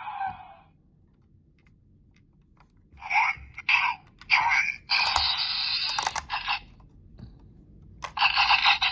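Kabuto toy transformation belt playing its electronic sound effects through its small speaker: a sound fading out, a pause, then several short blips and a longer effect, with a few sharp clicks, and another effect starting near the end.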